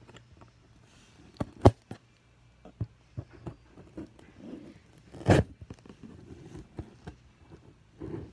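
Handling noises: a scatter of sharp knocks and clicks, two of them much louder than the rest (about a second and a half in and about five seconds in), with faint rustling in between.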